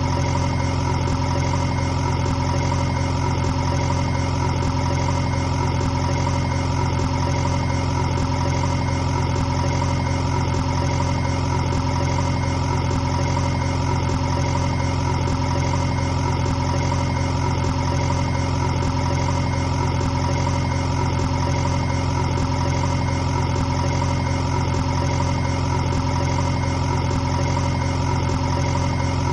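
A motor running steadily at one unchanging pitch, with an even hum.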